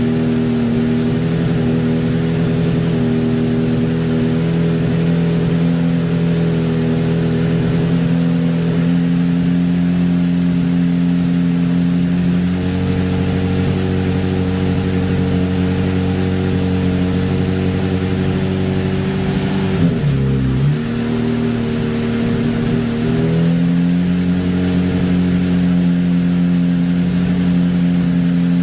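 Honda CBR600RR inline-four engine running steadily a little above idle through a Yoshimura carbon-fibre slip-on exhaust, the bike in gear with its rear wheel spinning freely on a stand. The engine note drops and wavers briefly about two-thirds of the way through, then settles back to a steady run.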